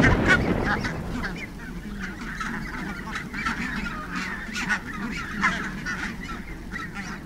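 A flock of Canada geese honking, many short calls overlapping one after another.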